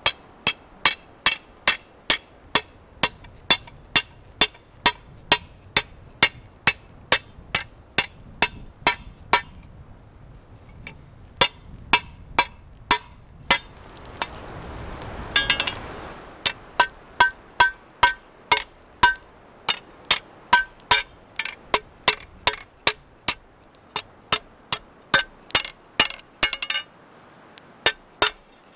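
Hand hammer striking a mild-steel arrowhead blank on a steel anvil block, about two ringing metallic blows a second, while curling the arrowhead's socket. The hammering pauses briefly with a short stretch of noise about halfway through, then resumes with each blow leaving a clear ringing tone.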